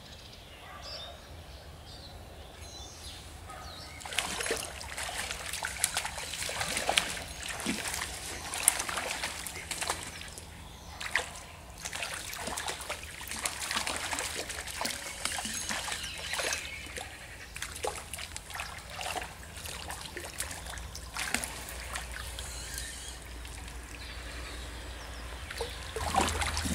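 Hooked brown trout thrashing at the surface of a shallow stream during the fight, in quick irregular splashes that start about four seconds in and ease off near the end.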